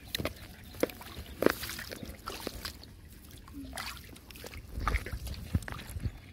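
Shallow muddy paddy water splashing and sloshing as a hand moves through it, with irregular small clicks and knocks.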